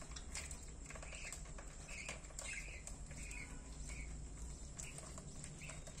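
Budgerigars chirping in a run of short calls, with light clicks and taps scattered among them.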